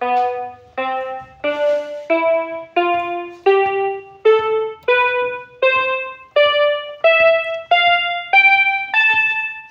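BIGFUN BF-430A1 toy electronic keyboard sounding single notes one key at a time, about one note every 0.7 seconds, each struck and dying away, stepping up the keyboard in a rising scale.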